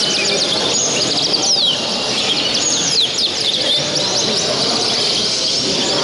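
Many caged show canaries singing at once, a dense chorus of trills and quick falling whistles, over a steady murmur of voices in a crowded hall.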